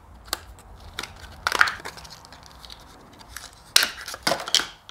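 Plastic lure packaging crinkling and clicking as it is handled and opened, with louder crackles about a second and a half in and again near the end.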